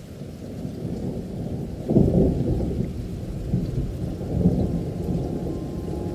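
Thunderstorm ambience: a low, muffled rumble of thunder over rain, swelling loudest about two seconds in and again around four and a half seconds.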